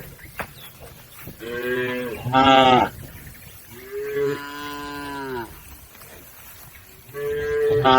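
Cattle mooing: three long moos, the first and last swelling louder toward their end.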